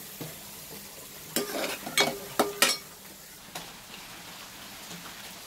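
Steel ladle knocking and scraping against a metal kadai of frying bitter gourd slices, over a steady low sizzle. A cluster of sharp clinks comes between about one and a half and three seconds in.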